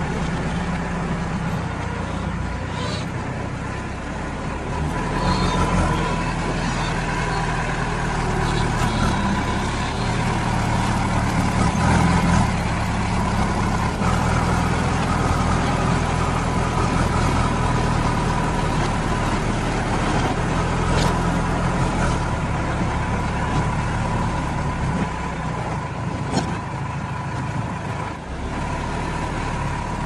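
JCB 3DX backhoe loader's diesel engine running under load, rising and falling in speed as the front bucket pushes and levels soil, with a steady high whine over it and a few knocks.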